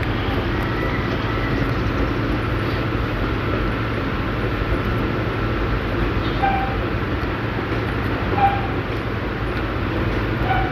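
Steady low rumble and hiss with a faint steady whine, and a few short faint tones about six and a half and eight and a half seconds in.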